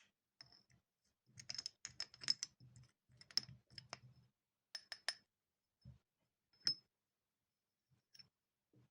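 Light clicks and clinks of small metal objects being handled on a hard work surface. They come thick and fast for a few seconds, then thin out to a few single clicks, one sharper clink near the middle.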